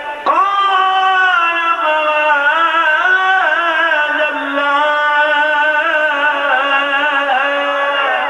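A man's voice singing in a chanted style, holding long drawn-out notes that waver up and down in pitch with hardly a break.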